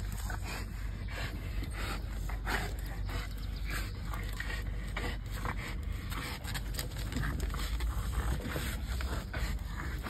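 American bulldog tugging and jumping at a rag held overhead, breathing hard, its paws scrabbling on dirt and stone in irregular scrapes.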